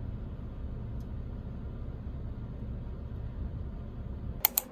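Steady low rumble of a car heard from inside the cabin. Near the end come two sharp clicks in quick succession.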